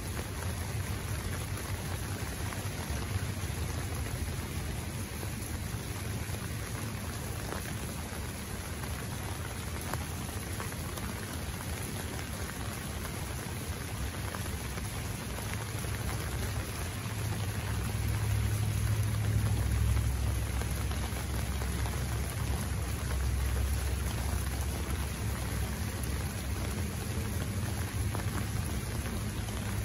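Steady heavy rain falling. A low rumble swells for several seconds about two-thirds of the way through.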